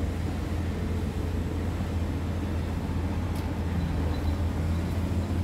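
Scania R tractor unit's diesel engine idling, a steady low drone heard from inside the cab.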